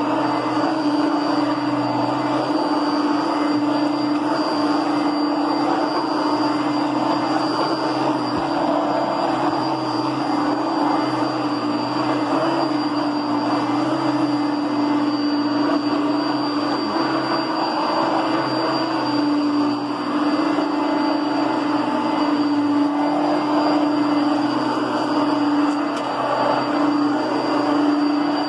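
Kenmore Heavy Duty Plus upright vacuum cleaner's 6.4-amp motor running steadily, a high whine over a low hum.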